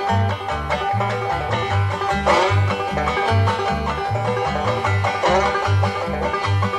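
Bluegrass instrumental intro: banjo and guitar picking over a steady bass beat, just before the singing starts.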